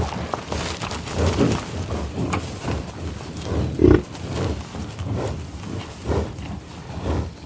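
American bison grunting and growling, a series of short, rough, low grunts coming every second or so.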